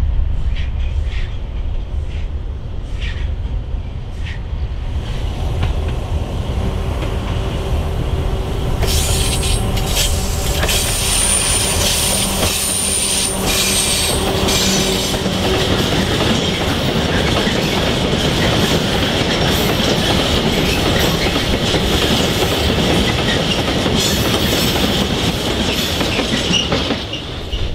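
A diesel freight locomotive passes close by with its engine running, followed by a long train of loaded steel-coil wagons rolling past. The wagon wheels click over the rail joints and squeal in a steady high band.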